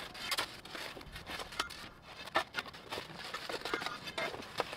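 Gritty scraping and crunching in irregular strokes, as dry concrete mix is worked into the hole around a steel gate post.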